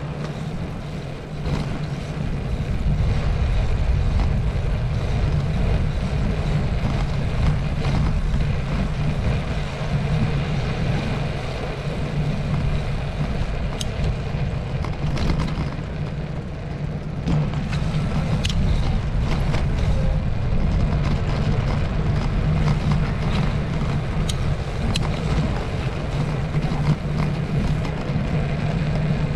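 Ride noise from a GoPro mounted on a moving bicycle: a steady low rumble and hum of tyres on tarmac and frame vibration, with a few small clicks and rattles now and then.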